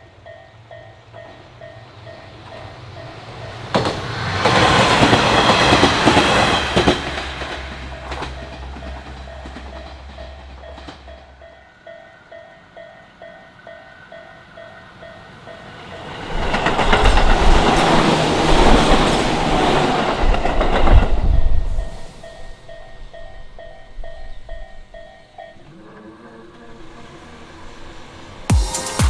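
Japanese railway crossing warning bell ringing in a steady repeating pattern while two trains pass over the crossing in turn. Each pass is a loud rush of wheels on rails lasting a few seconds, the first about four seconds in and the second around sixteen seconds in. Near the end the bell's pattern changes.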